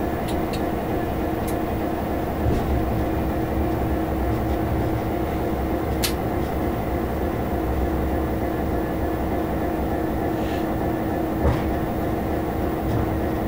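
Class 66 diesel locomotive heard from inside its cab on the move: the EMD two-stroke V12 engine and running gear make a steady drone and rumble, with a few sharp clicks and knocks, the loudest a little before the end.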